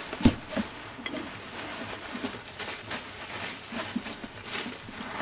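Intermittent rustling and crinkling of the plastic release film peeled from peel-and-stick roofing underlayment, with light knocks on the plywood deck; the loudest is a single thump about a quarter second in.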